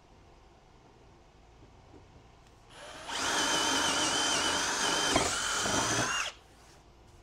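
Power drill boring a hole through a hardwood cabinet door. It spins up nearly three seconds in, holds a steady high whine for about three seconds, then stops suddenly.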